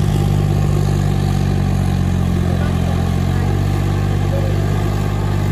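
Farmtrac 6050C 4WD tractor's diesel engine running at a steady, unchanging pitch as it cultivates flooded, muddy ground.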